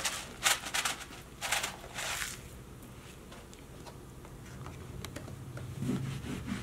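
Sprinkles rattling as they are shaken out of a small cardboard shaker box onto a carpet mat: about five quick shakes in the first two seconds, then quieter.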